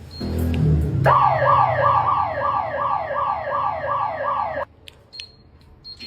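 Electronic security-alarm siren, triggered by an intrusion panic button, sounding in rapid falling sweeps about three a second for three and a half seconds, then cutting off suddenly. A low rumble rises in the second before it starts.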